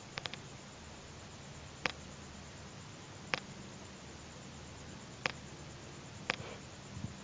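Beads and thread being handled in beadwork: a few faint, sharp clicks, three quick ones at the start and then single ticks every second or two, over a low steady hum.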